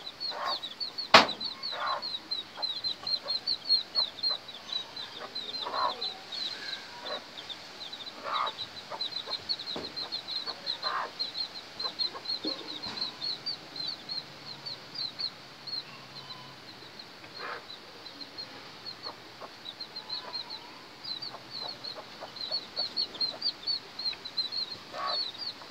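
Chicks peeping without a break, many short high chirps a second, with a hen's occasional clucks. A sharp knock sounds about a second in.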